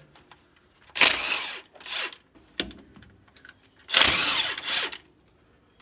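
DeWalt cordless impact wrench hammering in short bursts, loosening the bolts of a tractor's hydraulic pump bracket: a burst of about a second, a shorter one right after, and another of about a second near the end.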